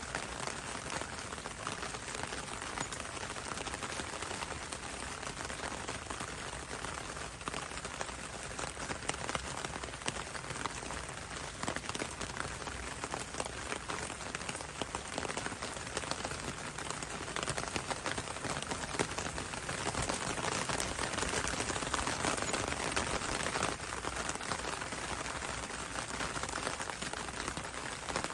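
Steady rain falling on leaves, a dense patter of drops that grows a little heavier for a few seconds past the middle.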